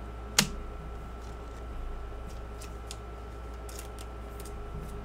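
Hands handling 2022 Panini Select football trading cards and their foil pack wrapper: one sharp click about half a second in, then a few brief soft rustles, over a steady faint hum.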